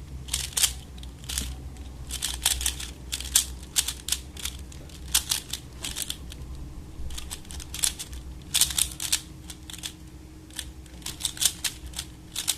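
Speed cube being turned by hand: irregular runs of quick plastic clicks and clacks as the layers are twisted, pausing briefly between runs.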